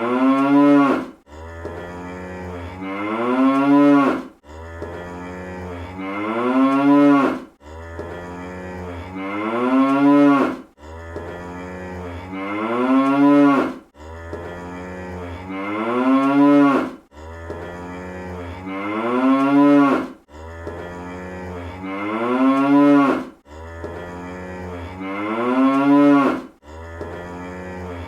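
Cartoon cow sound effect: the same moo played on a loop, repeating about every three seconds. Each moo starts low and steady, then rises in pitch and swells louder before cutting off abruptly.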